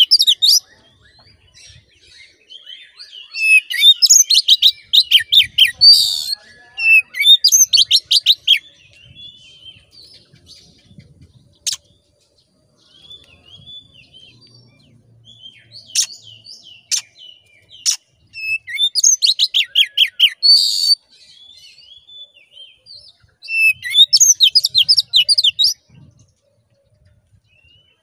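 Oriental magpie-robin singing a loud, fast, varied song in several bursts of rapid whistled and chattering notes, with softer single notes and a few sharp clicks between bursts. This is the excited full song that keepers play as a lure to rouse other magpie-robins.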